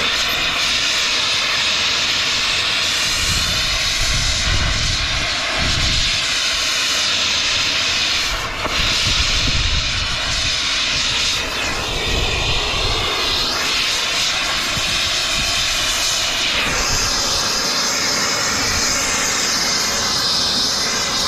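Plumber's turbo torch burning with a steady, loud hiss while heating a soldered copper pipe joint, with occasional low rumbles.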